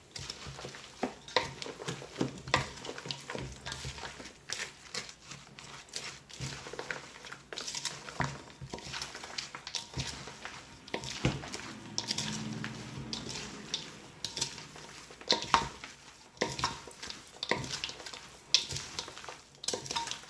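Wooden spoon stirring moist crushed-saltine cracker stuffing in a stainless steel mixing bowl, with irregular knocks and scrapes of the spoon against the metal as the milk is worked in.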